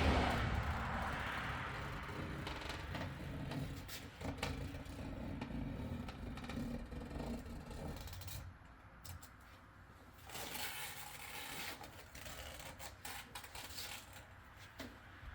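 Irregular light scraping, rubbing and ticking of hands and a tool working a vinyl graphic onto car window glass. A louder rushing noise fades away over the first two seconds.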